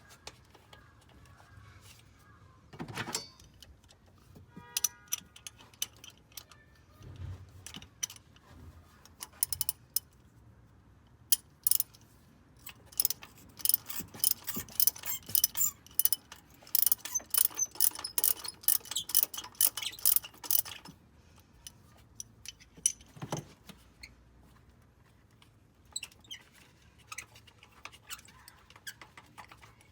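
Hand tools working on an engine: scattered clicks and knocks, with a run of rapid ratchet-wrench clicking in the middle that lasts several seconds.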